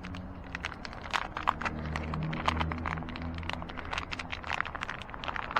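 Irregular light clicks and taps of small metal parts and hand tools being handled during a bicycle brake job, over a low steady hum that grows a little louder in the middle.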